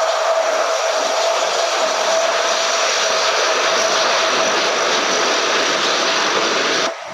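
Jet aircraft engine running loud and steady with a high-pitched turbine whine, cutting off abruptly near the end.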